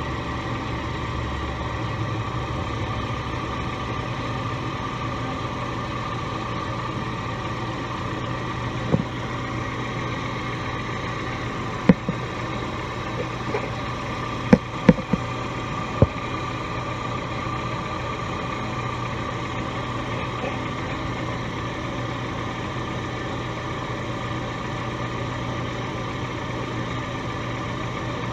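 Vehicle running with a steady hum, a few sharp clicks or knocks in the middle.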